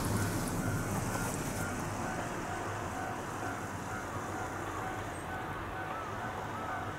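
Road traffic noise: a vehicle passes and fades over the first couple of seconds, leaving a steady low hum. Through it a faint high tone repeats on and off in the distance.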